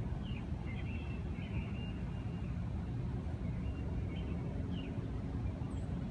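Outdoor ambience: a steady low rumble with small birds chirping on and off, in short high notes.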